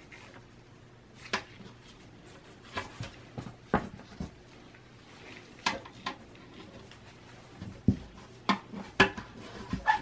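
Irregular clicks, clinks and knocks of a small-form-factor desktop computer's metal chassis, parts and tools being handled during disassembly, with a cluster of louder knocks near the end.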